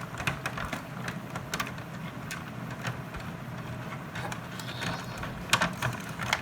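Scattered clicks and rustling of toy packaging being handled while the last tie holding the toy is worked at to cut it free, with a few sharper clicks near the end, over a steady low hum.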